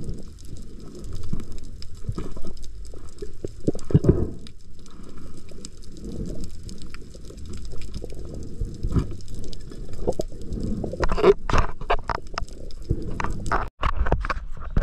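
Muffled underwater sound heard through a diving camera's housing: a low rumble of water with scattered knocks and clicks as a speared fish is handled on the spear shaft. A cluster of sharper knocks comes about eleven seconds in, and the sound breaks off suddenly near the end.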